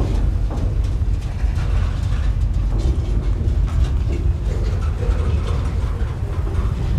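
Freight train's gondola cars rolling past close by: a steady low rumble of steel wheels on the rails, with irregular knocks and rattles from the cars.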